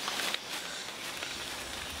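Rainforest ambience: a steady high hiss with a few faint clicks and rustles among the branches. A low rumble comes in past the middle.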